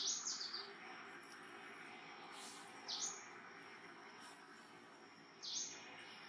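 Wild birds chirping: short, high, falling chirps, a quick cluster at the start, then single chirps about three and five and a half seconds in, over a faint steady outdoor background hiss.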